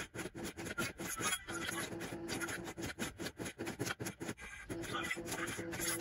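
Re:Zero pachislot machine's game audio from its cabinet speakers during play: a character voice and sound effects over its animation.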